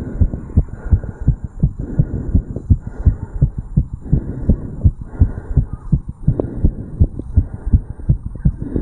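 A man's heartbeat recorded over the tricuspid valve area of the chest, beating fast after jogging uphill. It is a quick, even run of short low lub-dub beats.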